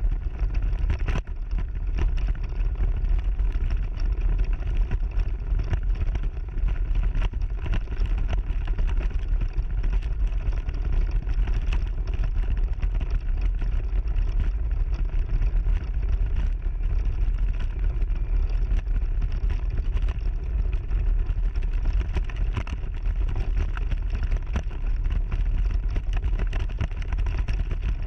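AC Mayan off-road mobility scooter driving steadily over a gravel track, picked up by a camera mounted on the scooter: a continuous low rumble with a dense patter of small rattles and clicks from the tyres and frame on the rough surface.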